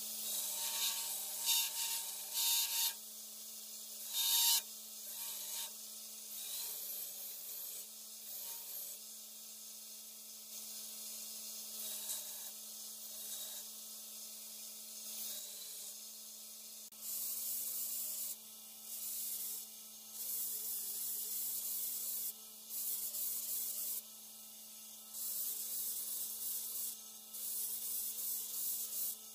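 Belt grinder running with a steady motor hum while wooden knife-handle scales are pressed against the sanding belt, giving repeated rasping bursts of a second or two each. The bursts are strongest and most regular in the second half.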